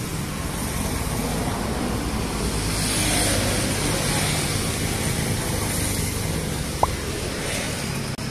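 Road traffic: a steady rumble of passing vehicles, with one passing louder about three seconds in. A brief high squeak comes near the end.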